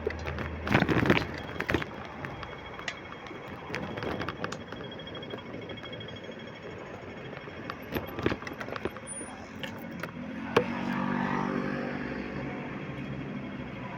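Street traffic noise heard from a moving bicycle, with scattered clicks and knocks. From about ten seconds in, a motor vehicle's engine grows louder close by and keeps running.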